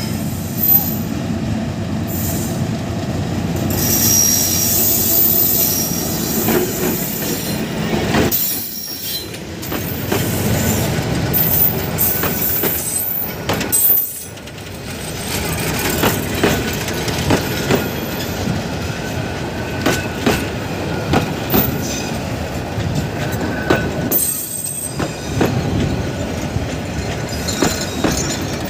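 A diesel locomotive-hauled passenger train passes close by as it enters a station. The locomotive's engine rumbles past first, then a long rake of passenger coaches rolls by, clattering over the rail joints with high wheel squeals at times.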